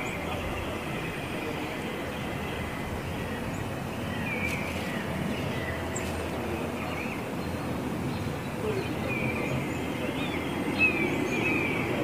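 Songbirds calling with short, high chirps and down-slurred notes over a steady low background rumble, the calls coming more often near the end. A single brief tap near the end.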